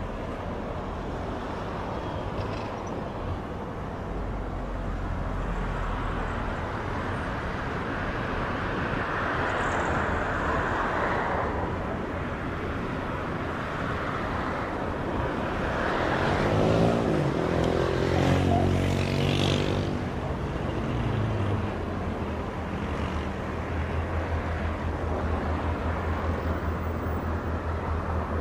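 Steady outdoor engine noise, with one louder pass between about sixteen and twenty seconds in whose pitch slides downward, followed by a low steady hum.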